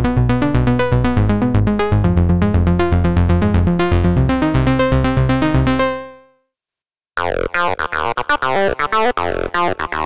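u-he Hive 2 software synthesizer playing its 'AZ Red Bass' preset, a fast repeating melodic bass loop that fades out about six seconds in. After about a second of silence, the 'AZ Squelch 1' preset starts a choppier pattern with quick pitch sweeps.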